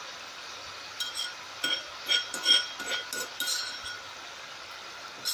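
A spoon clinking against the cooking pot: a run of about eight quick, ringing clinks between about one and four seconds in, as the ginger-garlic paste on the chicken is worked.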